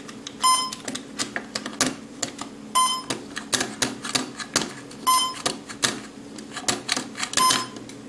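A short electronic beep repeating four times, about every two and a quarter seconds, with irregular sharp clicks and taps in between.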